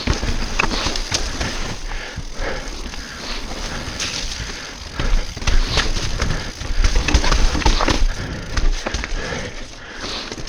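Mountain bike riding fast down a rough trail over roots and rocks: tyre noise with frequent irregular clatters and knocks from the bike, over a steady low rumble.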